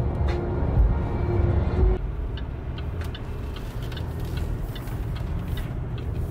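Car road noise from inside a moving car: a loud, steady low rumble at highway speed that drops to a quieter rumble about two seconds in, with faint scattered ticks.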